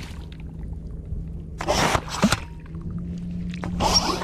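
A metal bait pump (prawn pump) drawing water and mud out of a mud prawn hole, with two short wet sucking, squelching bursts, one about two seconds in and one near the end. A low steady hum runs underneath.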